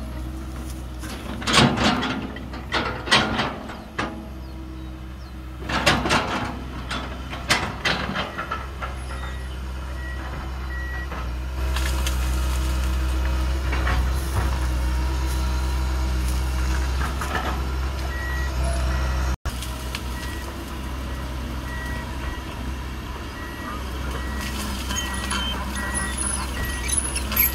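Komatsu PC200 excavator's diesel engine running under load, with sharp cracks and scraping in the first several seconds as the bucket tears out roots and brush. Later the engine settles into a steady heavy hum, and a travel alarm starts beeping about one beep a second as the machine moves on its tracks.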